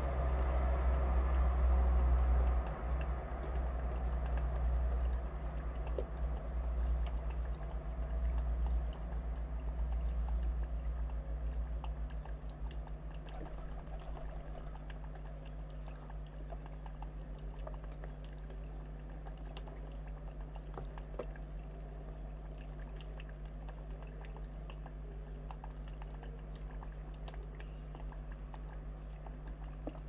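Feral pigeons' beaks tapping and pecking at the plastic water fountain and seed, scattered light clicks over a steady low hum. A low rumble fades away over the first dozen seconds or so.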